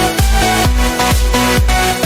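Electronic dance music with a steady pounding kick drum, about two beats a second, under sustained synth notes.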